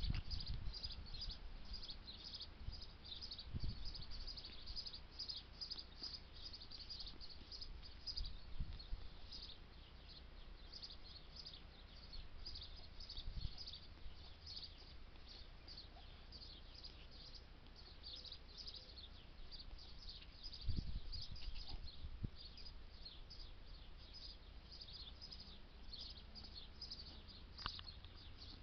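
Small birds chirping faintly, with short high chirps following one another almost without pause. A few soft low thumps come in between, the loudest about two-thirds of the way through.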